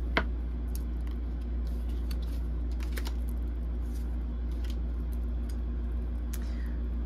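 Tarot cards being handled: small clicks and taps as cards are moved and set down, the sharpest just at the start, over a steady low hum.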